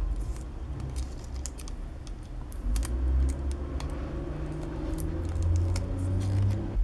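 Adhesive tape being peeled slowly off a plastic eyeglasses frame: scattered small crackles and clicks over a low rumble.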